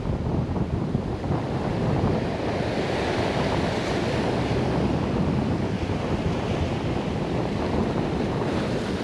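Rough sea surf breaking and washing up the shore in a steady rush, with wind buffeting the microphone.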